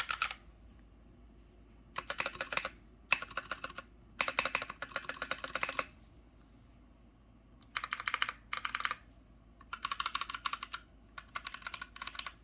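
Typing on a Royal Kludge Pro 100 mechanical keyboard with brown (tactile) switches: quick runs of key clacks in about seven bursts, with short pauses between them.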